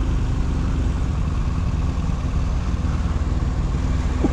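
Motorcycle engine running slowly at near-idle, a steady low drone heard through the bike-mounted camera.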